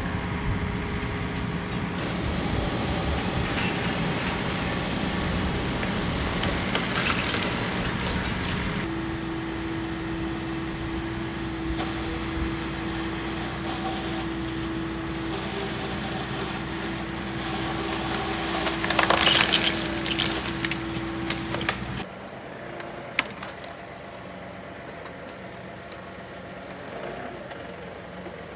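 Tractor-mounted hydraulic pole chainsaw (Limbsaw) cutting through tree limbs, running with a steady whine over the compact tractor's engine. About two-thirds of the way through, a limb cracks and splinters loudly as it breaks away. Near the end the sound drops to the quieter tractor engine alone.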